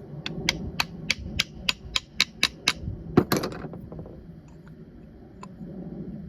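About ten quick hammer taps on a plastic piece driving the shaft and bearing out of a vane-type power steering pump, roughly three a second, then a harder strike followed by a brief rattle.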